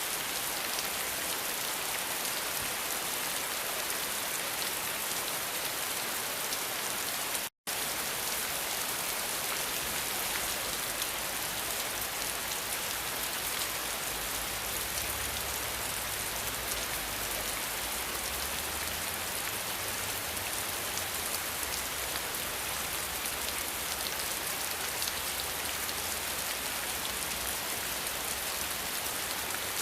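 Steady, dense rain falling and pattering on surfaces, a continuous hiss with no let-up. It cuts to silence for a split second about seven and a half seconds in, then carries on.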